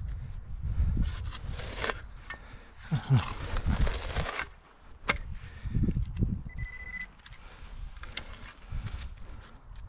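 Spade digging into root-laced forest soil: thuds and rough scraping as the blade cuts and levers the earth, with a sharp click about five seconds in. Near the end of the digging, a short high electronic beep of about half a second from the metal-detecting gear.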